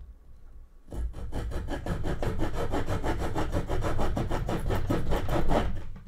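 Saw blade of a Leatherman Super Tool 300 multitool cutting through a dry, fairly soft wooden branch about 3 cm thick. It goes in quick back-and-forth strokes, about five a second, which start about a second in and stop just before the end.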